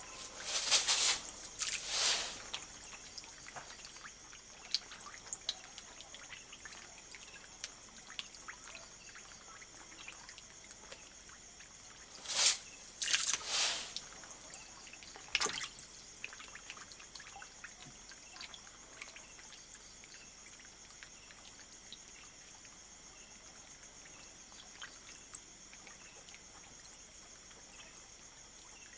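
Water trickling and dripping in a walking catfish (Clarias batrachus) tank, broken by a few sharp splashes as the catfish feed at the surface: two about a second in, two more about twelve seconds in, and a smaller one shortly after.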